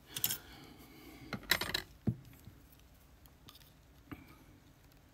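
Small metal lock parts and tools clinking and rattling as they are handled, in a few short clusters of clicks in the first two seconds, then a few scattered light ticks.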